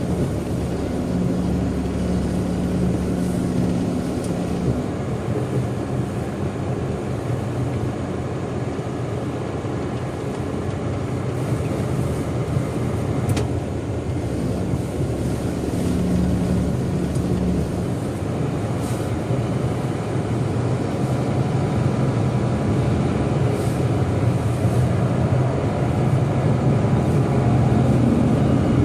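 Jet airliner engines running on the airport ramp: a steady low rumble with a droning hum that grows gradually louder toward the end.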